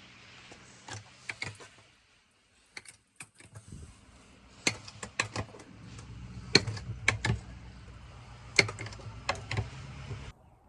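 Irregular sharp clicks and clatter over a low steady hum; the hum cuts off abruptly near the end.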